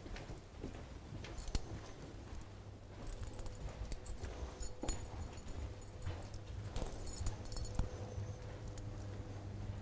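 Footsteps of people walking along a ship's corridor, irregular clicks and knocks with two spells of light metallic jingling, over a steady low hum.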